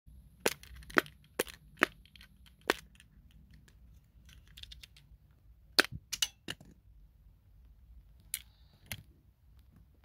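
Single-bubble silicone pop-it fidget keychain being pressed by thumb, each push of the red bubble giving a sharp pop. There are about ten pops: five quick ones at the start, three about six seconds in and two near the end.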